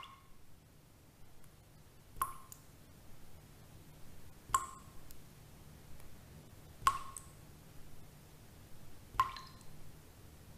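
Slow, evenly spaced drips, five of them about two and a quarter seconds apart, each a sharp drop with a short ringing note, over a faint low hum.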